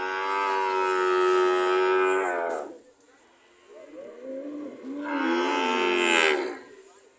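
Cows mooing: two long calls, the first held at a steady pitch for about two and a half seconds, the second starting wavering and low, then swelling louder about five seconds in.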